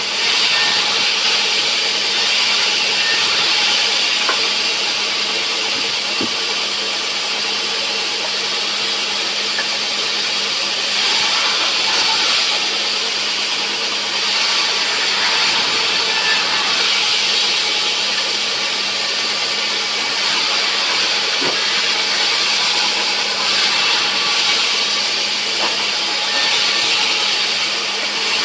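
Sawmill saw running steadily through a rubberwood log: a continuous hiss of cutting over an even machine hum.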